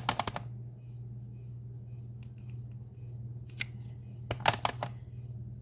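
Quick clusters of light taps, a handful at the start, one more later and another burst about four and a half seconds in: a photopolymer stamp being tapped onto an ink pad and pressed onto card stock on a foam mat. A steady low hum runs underneath.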